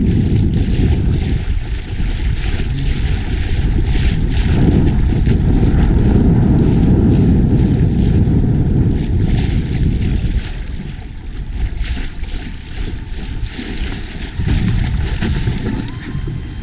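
Wind buffeting an action camera's microphone, a loud gusty rumble that eases about ten seconds in.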